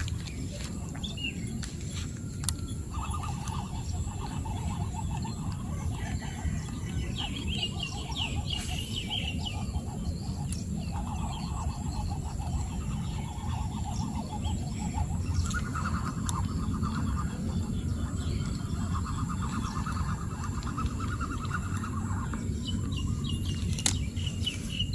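Small animals calling outdoors: rapid pulsed trills, each lasting a few seconds and repeated several times, over a steady low background noise.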